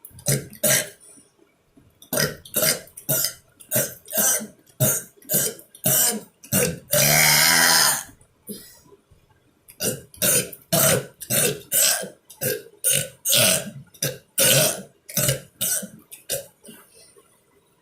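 A person burping over and over in short separate burps, about two a second. About seven seconds in comes one long drawn-out burp, then a brief pause before the quick run starts again.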